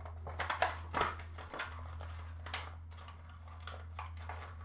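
Light, irregular clicks and soft rustling of trading cards and their packs being handled, over a steady low hum.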